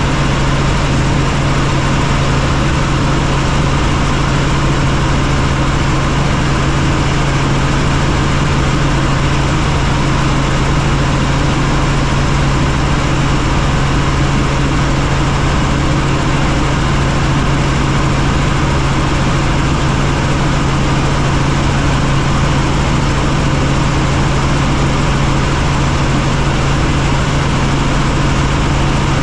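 Helicopter in flight: a loud, steady engine and rotor drone with a strong low hum that does not change.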